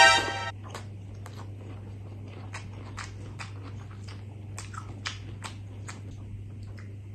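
Close-up eating by hand: a brief hummed 'mm' as a handful of rice goes into the mouth, then scattered wet chewing and small mouth clicks while the fingers gather more rice in gravy. A steady low hum sits underneath.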